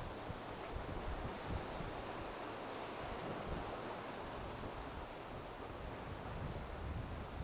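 Rough sea surging and breaking in strong wind: a steady wash of surf, with wind rumbling on the microphone, lighter in the middle and picking up again near the end.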